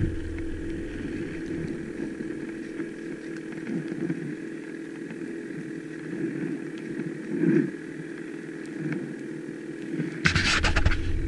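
Ski-doo snowmobile engine running steadily while riding along a trail, heard from the rider's seat, with a brief swell about two-thirds of the way through. Near the end a louder rush of noise comes in over the engine.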